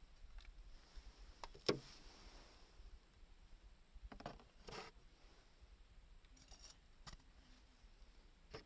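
A few separate sharp clicks and snaps against near silence, the loudest about two seconds in.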